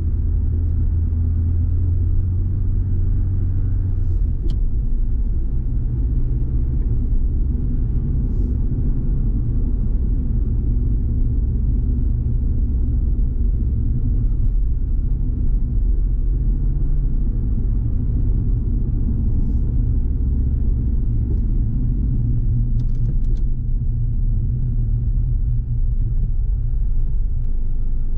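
Car interior sound while driving in city traffic: a steady low rumble of engine and tyres, heard inside the cabin. A low hum is strongest for the first four seconds, and a few faint ticks come through.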